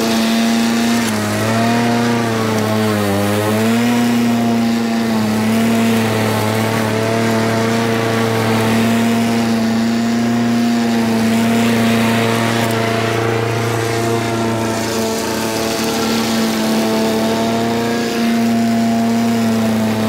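Petrol walk-behind rotary lawn mower running steadily while cutting grass. Its engine note wavers and dips in pitch for a couple of seconds about two seconds in, then holds steady again.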